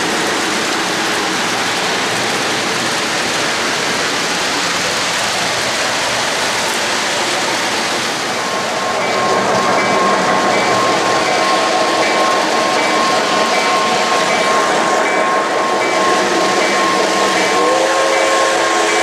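Model trains rolling on three-rail O-gauge track with a steady rumble. About halfway through, a steady high ringing with a regular pulsing beat joins in, and near the end a locomotive horn sounds as the diesel approaches.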